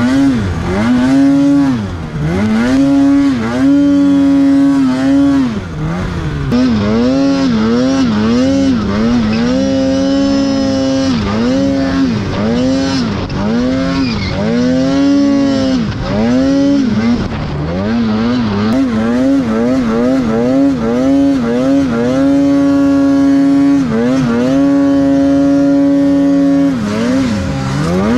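2022 Polaris Matryx RMK 850 two-stroke snowmobile engine with SLP twin pipes, revving hard in deep snow. The throttle is blipped again and again, so the pitch drops and climbs many times, with a few stretches held steady at high revs, notably about ten seconds in and for several seconds in the last third.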